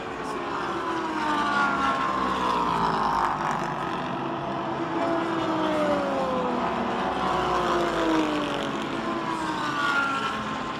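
Endurance race cars passing by on the track one after another, each engine note dropping in pitch as the car goes past, several passes in a row.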